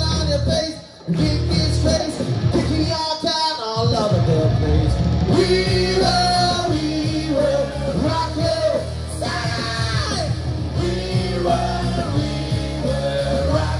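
A live rock band playing with a singer over electric guitar, bass and drums. The band drops out for a moment just before a second in, then comes back in full.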